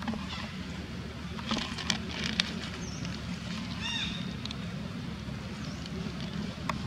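Outdoor ambience with a steady low rumble. A few crisp crackles come between about one and a half and two and a half seconds in, and a short high chirp about four seconds in.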